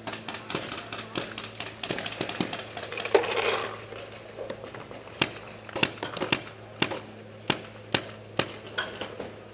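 Paintball fire: irregular sharp pops and knocks, with a louder, rougher burst about three seconds in. The sharp knocks come singly and in quick pairs through the second half.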